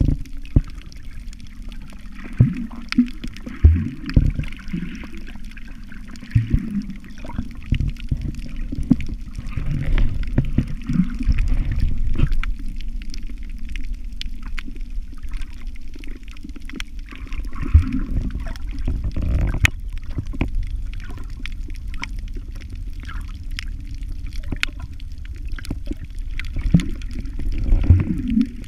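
Muffled water sloshing and gurgling heard underwater, with many short low thumps and knocks scattered through it.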